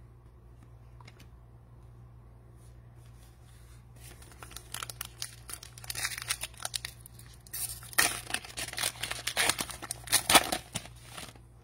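Foil wrapper of a Panini Contenders Draft Picks football card pack crinkling and being torn open by hand. It starts about four seconds in and grows louder and denser in the second half.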